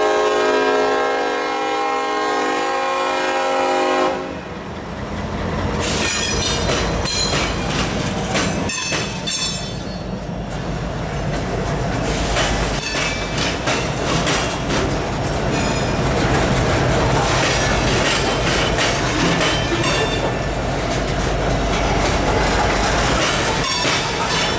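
A freight locomotive's air horn sounding a held chord that cuts off about four seconds in, then the diesel locomotives and freight cars rolling past with a steady low rumble and the clickety-clack of wheels over rail joints, with some wheel squeal.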